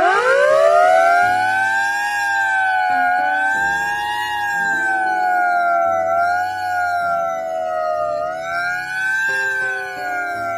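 Air siren of a 1952 American LaFrance 700 fire engine, sounded with its footstepper. It rises fast to a loud wail, wavers up and down a few times, and starts to wind down near the end.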